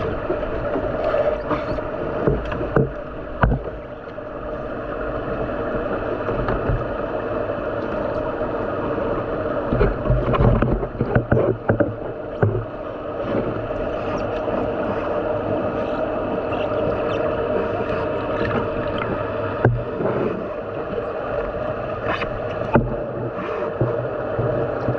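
Underwater sound picked up by a submerged camera in a large aquarium tank: a steady hum with a constant low drone, broken by irregular bubbling bursts and knocks, busiest about ten to twelve seconds in.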